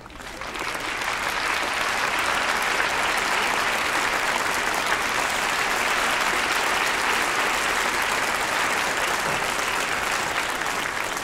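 Large audience applauding steadily, building up over the first second.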